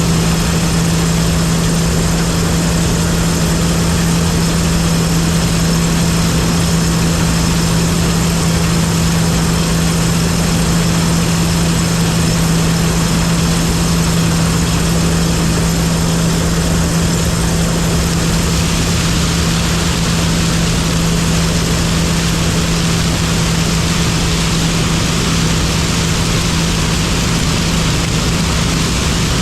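John Deere 9860 STS combine harvester running steadily: a strong low hum over a constant wash of machine noise, its higher part shifting slightly about two-thirds of the way through.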